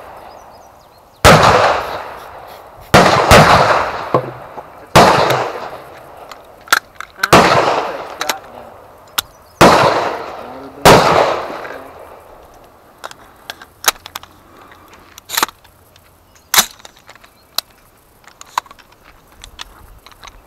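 Gunshots on an outdoor firing range: about seven loud, unsuppressed shots, each trailing off in a long echo, over the first eleven seconds, then a scatter of fainter, more distant shots.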